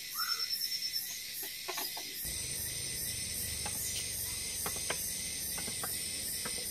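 Steady chorus of forest insects chirring, with a short high trill near the start. About two seconds in, a low steady rush of stream water comes in, and several light wooden knocks sound as sticks are laid on a pole frame.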